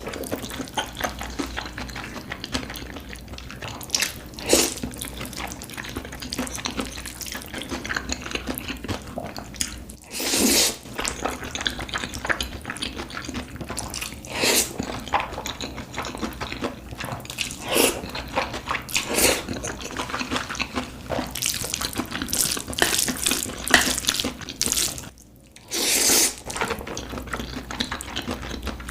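Close-miked mukbang eating: a steady run of short, wet chewing and mouth sounds, with a few longer, louder ones spread through.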